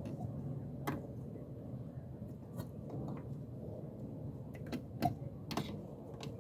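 Scattered light clicks and knocks of hand work with tools and parts, about seven in all, the loudest about five seconds in, over a steady low hum.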